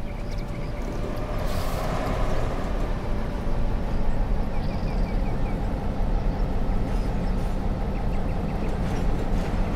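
Outdoor ambience: a steady, fluttering low rumble, with a small bird chirping in short runs of quick notes in the middle and again near the end.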